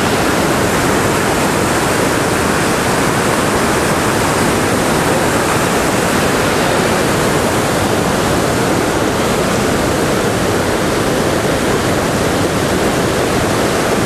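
Muddy floodwater rushing over rocks in whitewater rapids: a steady, even rush of water with no let-up. The river is in spate from a dam release upstream.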